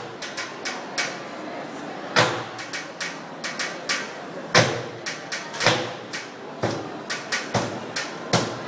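Long wooden pestles pounding Arabic ice cream (booza) in metal freezer wells: a run of sharp knocks at an uneven pace, with heavier blows about every second.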